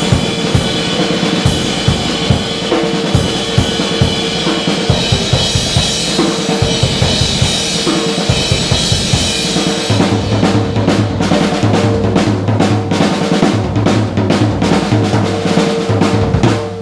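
Drum kit played in a continuous improvised groove: bass drum, snare with rimshots, and cymbals hit in quick succession. From about ten seconds in, a low sustained tone sounds beneath the hits.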